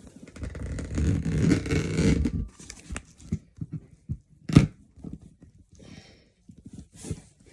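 Tearing, rustling and scraping at a tightly sealed package being pulled at by hand, loudest in the first two seconds or so. Scattered small scrapes follow, with one sharp knock about halfway through.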